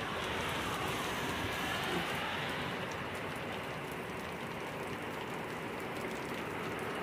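Very heavy rain falling steadily: an even, constant hiss of rain on the wet road and ground.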